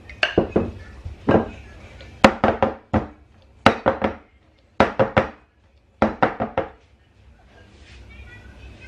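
Batter-filled metal ring cake pan knocked down on the counter again and again, in short bursts of three or four sharp knocks each, to settle the batter. The knocking stops about seven seconds in.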